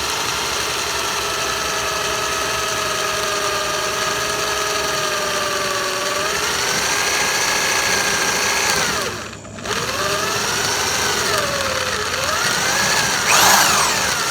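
Electric drill drilling out the old rivet that holds the plastic slide on a Mercedes W126 window regulator arm. The motor runs at a steady whine, stops briefly about nine seconds in, then runs again with its pitch dipping and rising as the bit bites.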